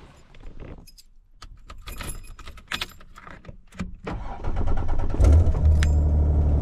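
Light clicks and rattles, then an engine comes in about halfway through and runs steadily with a low, even hum.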